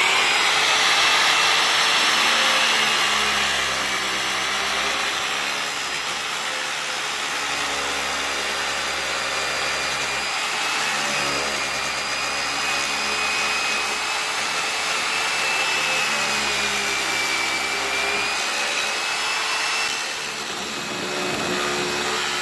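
Makita 5-inch disc grinder with a sanding disc, running steadily and grinding away the end of a crown molding to cut the cope. The motor's whine wavers slightly as the disc bites into the wood.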